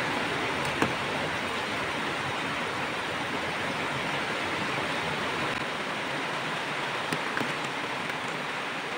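Water at a rolling boil in a metal pot, a steady bubbling hiss, with a metal ladle clicking against the pot about a second in and again a few times near the end.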